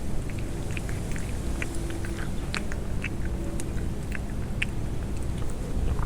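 A hungry cat pushing its food bowl across the floor: a run of small irregular clicks and ticks from the bowl, with faint low squeaks now and then.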